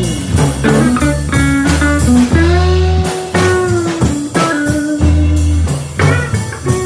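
Music with a steady drum beat, a bass line and sustained melody notes.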